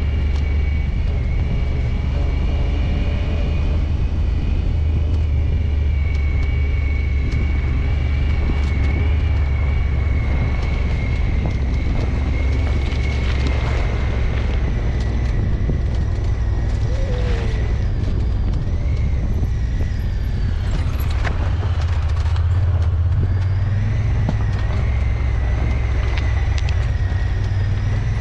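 Side-by-side UTV engine running at a steady drone while driving, with a thin high whine on top.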